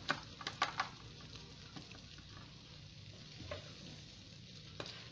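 Wooden spatula scraping and knocking against a frying pan and an aluminium foil tray while scooping thick cooked macaroni: a quick run of clicks in the first second, soft scraping after, and one more knock near the end.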